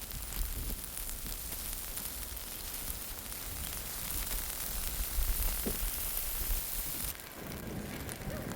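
Blizzard wind blowing across the microphone: a steady hiss with low rumbling buffets, the hiss dropping off sharply about seven seconds in.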